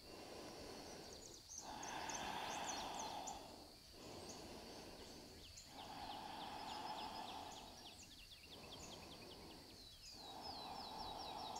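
Slow, faint, audible breathing, each inhale and exhale lasting about two seconds, with small birds chirping in the background.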